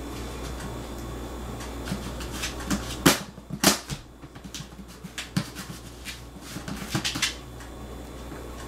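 A cat's paws knocking and scratching at a plastic food jar and its plastic lid: scattered taps, with two loudest knocks about three seconds in, a little over half a second apart, and a short run of taps near the end. A steady low hum runs underneath.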